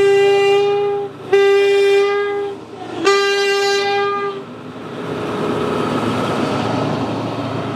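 Diesel locomotive horn sounding three single-tone blasts, the first already sounding and stopping about a second in. After the blasts, the steady noise of a train of wooden box wagons rolling past close by.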